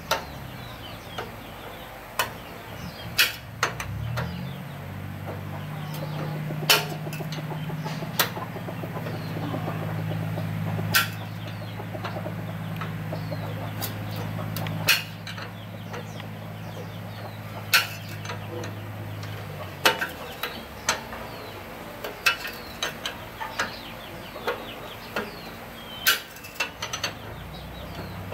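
Irregular sharp metal clicks and clinks of a wrench working the bolts at a motorbike's rear wheel and exhaust, with chickens clucking in the background. A low steady hum comes in about four seconds in and fades out around twenty seconds.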